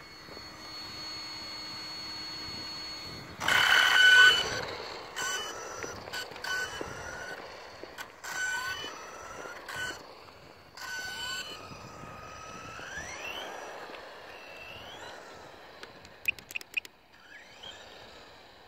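Tamiya DF-03 RC buggy's 7700kV brushless motor on a 3S LiPo, whining through repeated bursts of throttle, its pitch sweeping up with each acceleration. The loudest burst comes about three and a half seconds in.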